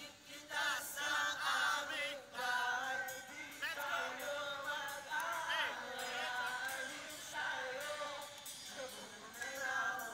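Live concert music with voices singing.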